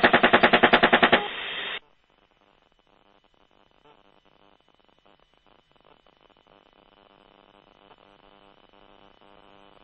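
A burst from an AH-64 Apache's 30 mm chain gun, about ten rounds a second, heard through the crew's radio recording, stopping about a second in. A short radio hiss then cuts off, leaving near silence with a faint hum that slowly rises toward the end.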